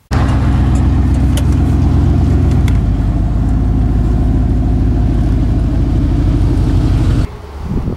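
Pickup truck engine running steadily under way, a loud, even low drone. It starts abruptly and cuts off near the end.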